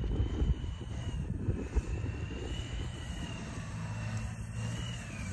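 Steady engine drone with a thin high whine that drifts in pitch, over a ragged low rumble of wind on the microphone.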